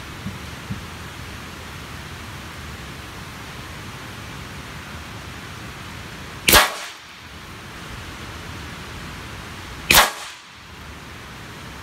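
M25 9mm (.35 calibre) air rifle firing twice, about three and a half seconds apart, each shot a single sharp report heard from the target end of the range.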